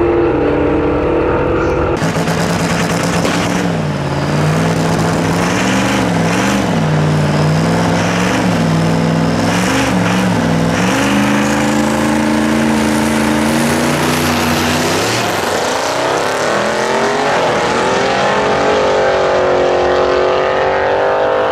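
Diesel pickup truck engine at a drag strip start line, blipped up and down while staged, with a high whine climbing. It then launches, its note rising steeply and dipping at the gear changes as it accelerates down the track.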